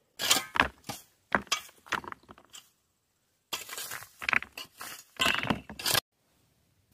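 A rake scraping through dirt and small stones, dragging fill back into a post hole in several strokes with short pauses, the stones clinking and rattling.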